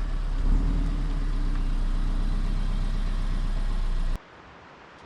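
Car engine running at low speed, a steady hum. It cuts off suddenly about four seconds in, leaving only a faint background.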